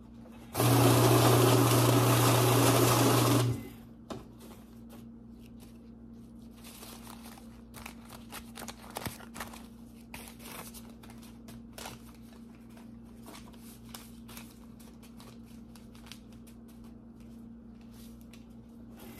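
Electric banknote counter running for about three seconds with a steady motor hum and whir as it feeds a stack of bills, then stopping abruptly. Afterwards, quieter scattered rustling and flicking of paper bills being sorted and straightened by hand.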